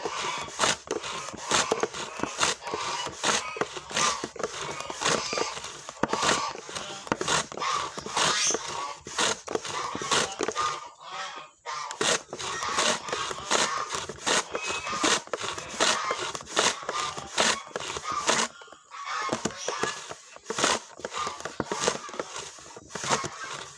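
Wooden hand slicer cutting shallots: a wooden pusher block scraped back and forth over the blade in quick, regular strokes, about two to three a second. The strokes pause briefly twice.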